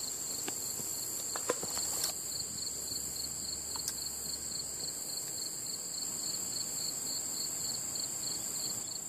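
A chorus of crickets: a steady high trill with a second, rapidly and evenly pulsing chirp beneath it. A few faint clicks in the first few seconds.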